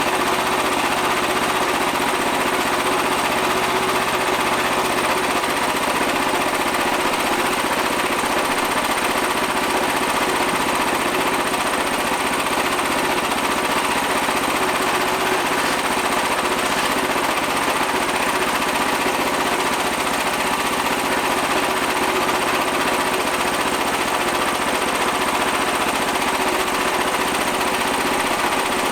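Frontier portable band sawmill running steadily under power, its engine and band blade at work on a large black walnut log.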